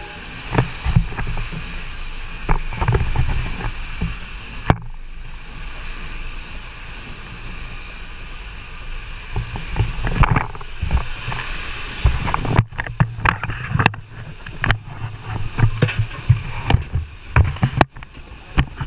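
Steam locomotive at work: a steady hiss of steam over a low rumble, with scattered knocks. The hiss drops away abruptly about five seconds in, and in the last third the sound turns into a dense run of sharp metallic clanks and knocks.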